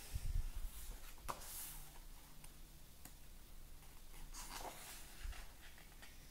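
Thick paper pages of a colouring book being handled and turned: faint papery swishes about one and a half seconds in and again a little after four seconds, with soft low knocks as the pages are lifted and laid down.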